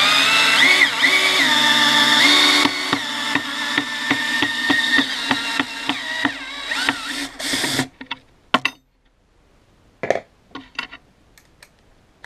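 Black & Decker EGBL108 cordless drill-driver running in reverse, backing a large wood screw out of a board, its motor whine shifting in pitch under load. A fast, regular clicking runs through the middle few seconds, and the drill stops about eight seconds in, followed by a few short knocks.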